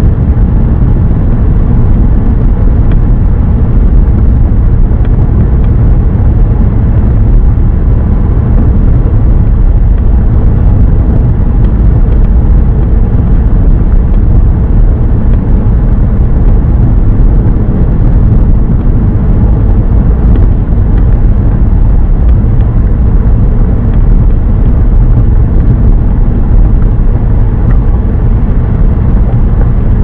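Saab 9-5 Aero driving at road speed, heard from inside the cabin: a steady low rumble of engine and tyre noise.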